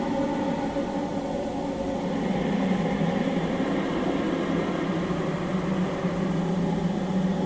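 A steady droning hum with hiss, even in level and without breaks, strongest in a low-middle band.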